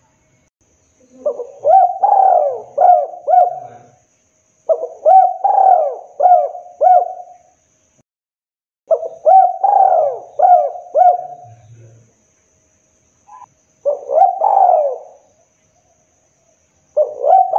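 Spotted dove cooing. It gives three phrases of several notes each, one about every four seconds, each starting with a longer rising-and-falling coo followed by quicker short notes. Two shorter phrases come near the end.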